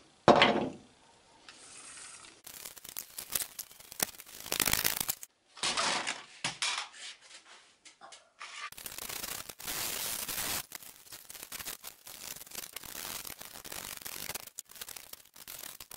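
Cassette tapes being taken apart and their magnetic tape pulled out and handled: stretches of rustling and rubbing, broken up by several abrupt cuts. A sharp clack near the start is the loudest sound.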